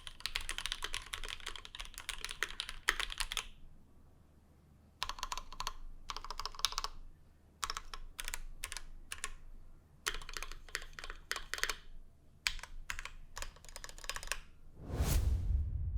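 Typing on a Keychron Q1 aluminium-plate mechanical keyboard with lubed and filmed SP-Star Luminous Cyber 62g switches and GMK Fuyu keycaps: a fast run of keystrokes, then short bursts of typing with brief pauses. Near the end a falling whoosh with a deep bass swell.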